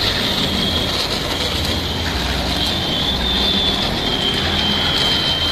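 Battery-powered toy trains running on plastic track: a steady whirring of small electric motors and gears, with a faint high whine in the second half.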